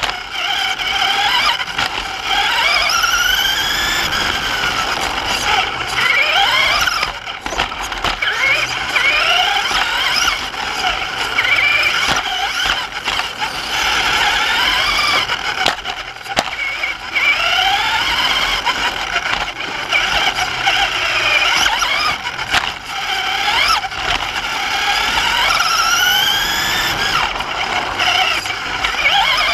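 Traxxas Slash RC short-course truck heard from a camera mounted on it, its motor and drivetrain whining high and rising in pitch again and again as the throttle opens and closes through the laps.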